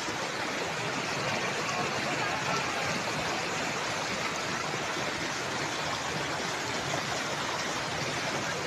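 Muddy flash-flood water rushing steadily over the ground.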